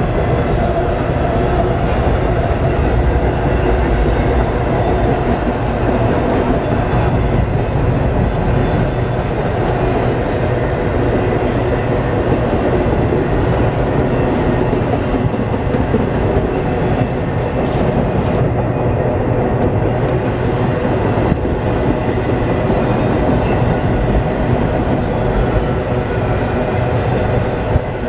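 CSX double-stack intermodal freight train rolling past, a steady, continuous sound of its wheels on the rails.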